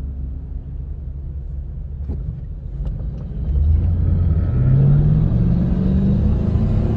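Inside the cabin of a Toyota Sequoia on Mickey Thompson Baja Boss all-terrain tires: a steady low road and tire rumble. A few light clicks come near the middle. About halfway in, the engine note rises in pitch and the sound gets louder as the SUV speeds up.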